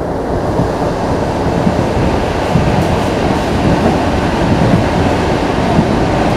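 Running noise of an ER2T electric multiple unit heard from inside its ER2R passenger coach under way: a steady, loud rumble of the wheels on the rails.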